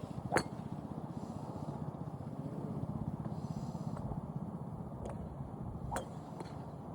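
Sharp clicks of golf clubs striking balls: a loud one about half a second in, another about six seconds in, and fainter ones near the end, over a steady low rumble.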